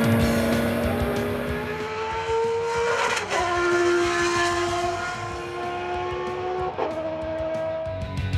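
Engine of a three-seater Formula 1 car at high revs, its note climbing slowly as the car accelerates. It changes gear abruptly about three seconds in and again near seven seconds.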